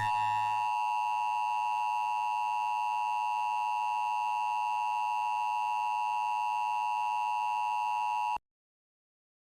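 Emergency Alert System attention signal: a steady, unwavering two-tone alarm held for about eight seconds, then cutting off suddenly.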